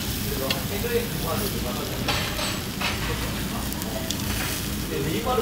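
Soy-marinated pork ribs sizzling on a tabletop charcoal grill, a steady hiss, with a few short metal clicks and scrapes of tongs and scissors handling the meat about two to three seconds in.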